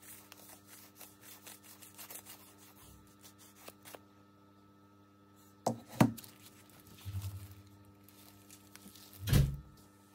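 Handwork on a small wooden icon board: quick light scratching and rubbing strokes for the first few seconds, then two sharp knocks about six seconds in and a heavier thump near the end, over a steady electrical hum.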